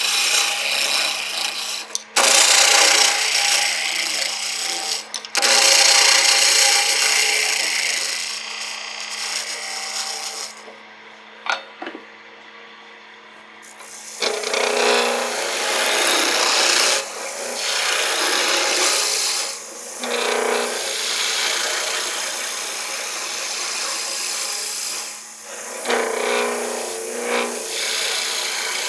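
Wood lathe running with a steady hum while a turning tool cuts the spinning wooden chair rung, the cut hissing in long strokes. The cutting stops for a few seconds about ten seconds in, leaving only the lathe's hum, then resumes in shorter passes.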